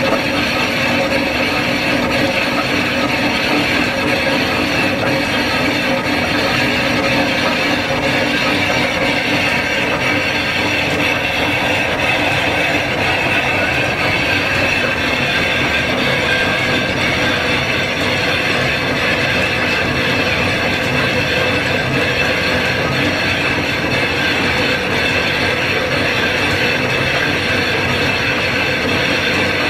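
Engine lathe turning a piston-ring casting under a heavy roughing cut: steady, unbroken machine running with the tool cutting down through the casting's hard chilled skin.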